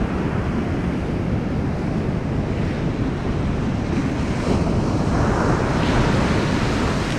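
Ocean surf breaking and washing on a beach, with wind buffeting the microphone. The surf swells louder about five seconds in.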